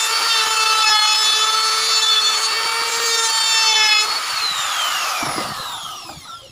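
Makita trim router running at full speed, a steady high whine with the rasp of the bit cutting the edge of a wooden cabinet door panel. About four seconds in it is switched off and the whine falls away as the motor winds down.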